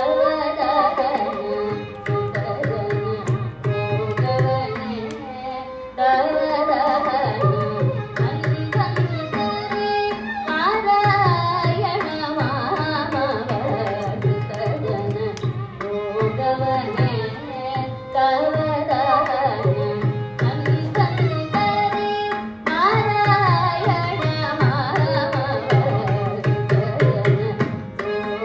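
A woman singing a Carnatic krithi in raga Purvi Kalyani set to Adi tala, her voice gliding through ornamented phrases, over a steady drum accompaniment.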